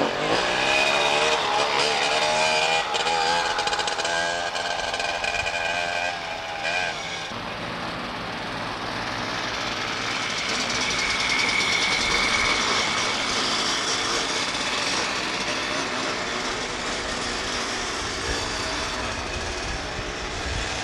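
Two-stroke go-kart engine catching after a push start and revving hard, its pitch rising and wavering for several seconds. After about seven seconds it turns into a steadier, more distant engine whine that swells and fades as the kart laps the track.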